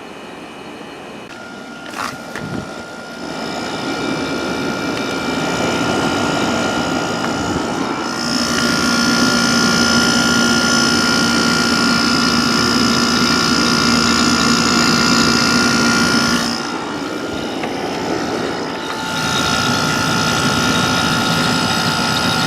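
Vintage Amana window air conditioner running: a steady whir with several whining tones. It grows louder after a click about two seconds in, drops back partway through, then rises again near the end.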